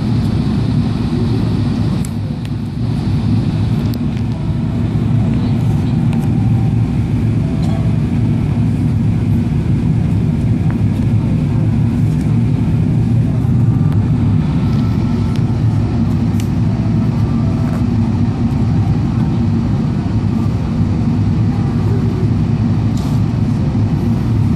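Steady low rumble of cabin noise inside a Boeing 777-300ER airliner on descent: its jet engines and the airflow over the fuselage.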